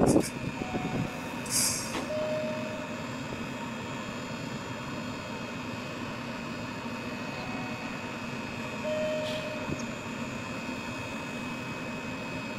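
A stationary express electric train's on-board equipment humming steadily while it stands on the track. A short faint tone sounds twice.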